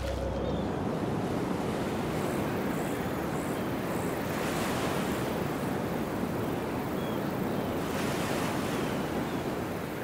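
Ocean surf: a steady rush of waves washing in, swelling a little about halfway through and again near the end.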